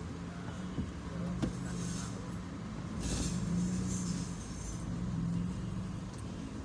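Car running at a slow roll, heard from inside the cabin: a steady low engine and road hum that swells a little midway, with a couple of faint clicks.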